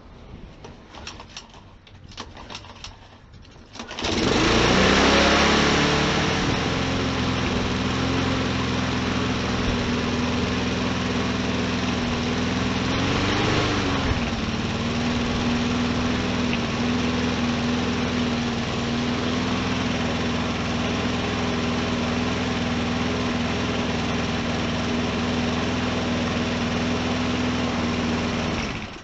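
Lawnmower engine starting about four seconds in after a few soft clicks. It settles from a higher speed into a steady run, rises in speed briefly about halfway, and stops near the end. It is running after a clean and a small service.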